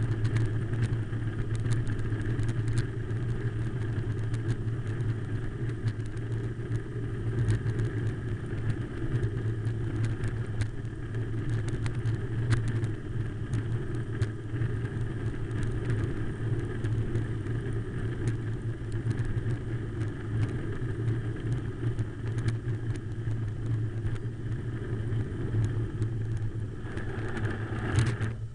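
Wind rush on a handlebar-mounted camera's microphone and tyre noise from a drop-bar bicycle descending a forest road at speed, with a steady low drone and frequent short clicks and rattles over bumps.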